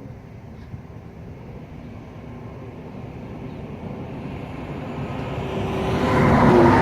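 A motor vehicle approaching and passing close by, its noise building steadily to a loud peak near the end.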